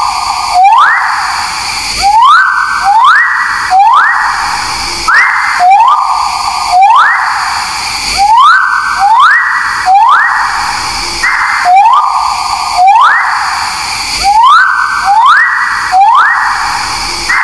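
A sickle-billed bird's call played as a loop: loud, harsh calls that each sweep up into a hissing tone, repeating about once a second.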